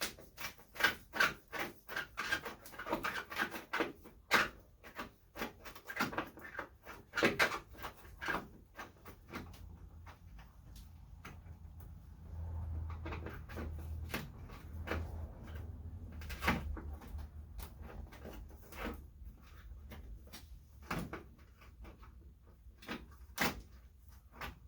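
Rapid clicks and knocks of hand work on a stubborn fitting on the car's front end. They come thick and fast for the first ten seconds or so, then thin out to scattered single clicks, with a low hum under the middle part.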